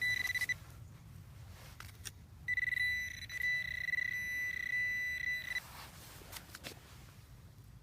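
Garrett pinpointer sounding its steady high electronic tone in two bouts, a brief one at the start and a longer pulsing one of about three seconds from about two and a half seconds in, signalling a metal target in the dug soil.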